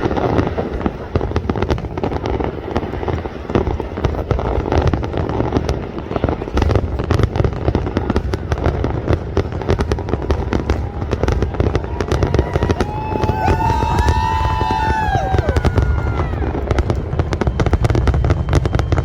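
Fireworks display going off continuously: a dense, irregular stream of crackles and bangs. About two-thirds of the way through, a high wavering whistle-like tone sounds for a few seconds and falls away.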